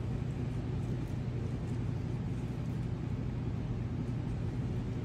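Steady low mechanical hum with a constant low tone and rumble underneath, unchanging throughout.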